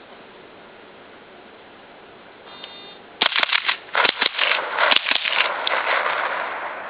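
A shot timer beeps, and about half a second later a Spikes .22 Long Rifle AR-style rifle fires a rapid string of about ten shots in under three seconds, the last ones trailing off into echo.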